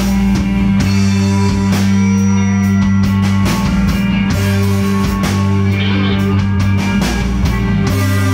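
Rock band playing live: electric guitars over a drum kit, with held low notes underneath and a steady run of drum hits.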